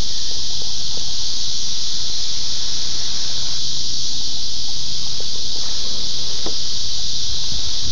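Steady, dense, high-pitched insect chorus of summer cicadas or similar insects, with low, uneven sloshing from a kayak paddle working the water and a few faint knocks.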